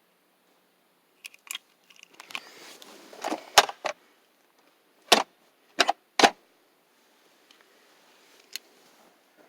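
A rustling clatter of small handled objects in the first few seconds, then three sharp clicks in quick succession and one fainter click near the end.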